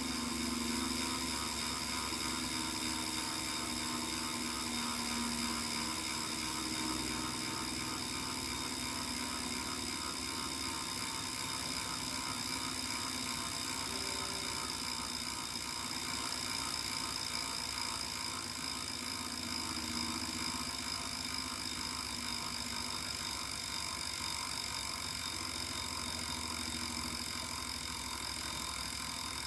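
Wahoo Kickr 2018 smart bike trainer running, with its drive belt tension reduced: a steady mechanical whine of several high tones over a low hum. The owner takes the remaining noise for flat-spotted bearings that need warranty replacement.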